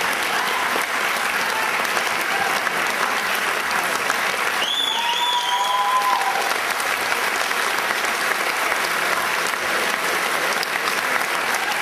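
Audience applauding steadily, with a short high cheer rising above the clapping about five seconds in.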